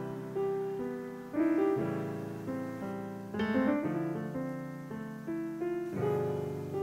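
Background music: a gentle piano tune, with notes and chords struck every second or so and left to ring.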